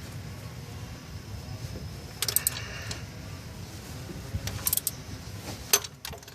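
Metal hand tools clinking and rattling in short bursts: a cluster of sharp clinks about two seconds in, and more near the end, over a low steady rumble.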